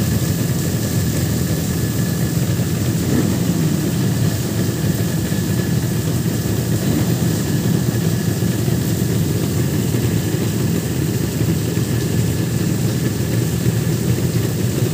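Yamaha RD350's two-stroke parallel-twin engine idling steadily.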